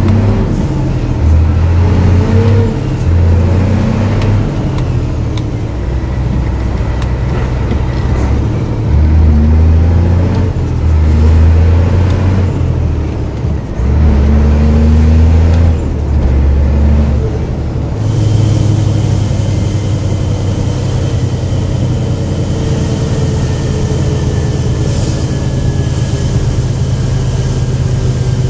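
Scania 124 360 truck's diesel engine heard from inside the cab, its pitch climbing and dropping several times as it is driven through the gears, then holding a steady drone for the last third.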